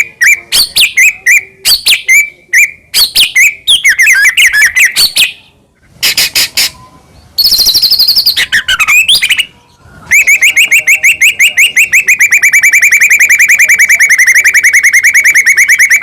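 White-rumped shama (murai batu) singing loudly: a string of varied short whistled phrases with brief pauses, a high drawn-out whistle in the middle, then a long fast trill of rapidly repeated notes lasting about six seconds.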